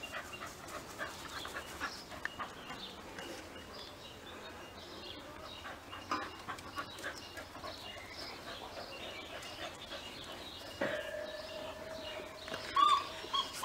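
Cocker spaniels panting and moving about on grass while they play, with faint scattered ticks. A steady high tone comes in about two-thirds of the way through, and a brief louder pitched sound follows near the end.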